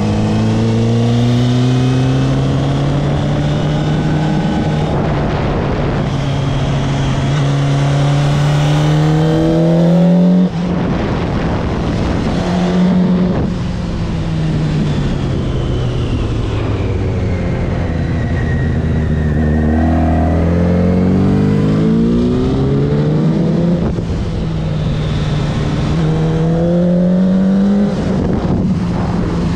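Honda CBR954RR race bike's inline-four engine heard onboard on a circuit lap, its pitch rising again and again under hard acceleration, with a sharp break at a gear change about ten seconds in.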